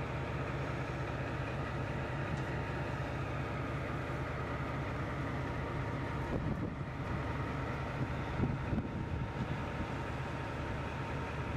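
Steady low mechanical hum of a stationary train, with a few irregular knocks about halfway through.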